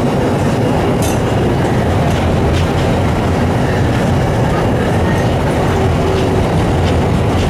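Vintage wooden-bodied tram running along street track, heard from the driver's cab: a steady rumble of wheels and running gear on the rails, with a few sharp clicks.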